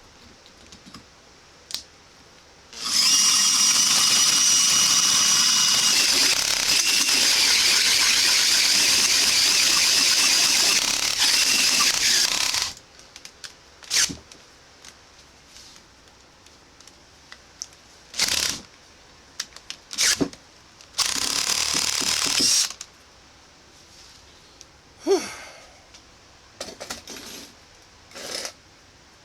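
Power drill driving a hole saw through steel railroad track. It cuts with a high screech for about ten seconds, then comes in short bursts of a second or two, with small clicks in the pauses.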